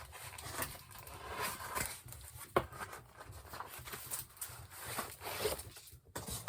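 Boxed ceiling fan blades being handled: irregular rustling and scraping of cardboard and packaging, with scattered light clicks and a sharper knock about two and a half seconds in.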